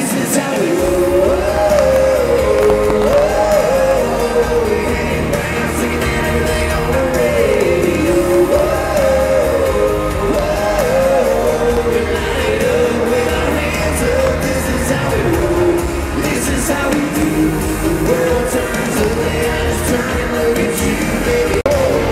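A live band performing: a lead singer over electric guitars and drums, with a continuous melody line.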